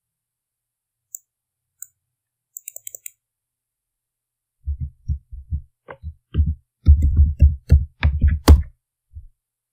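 Computer keyboard typing: a few scattered clicks, then about halfway in a quick run of keystrokes that is the loudest part.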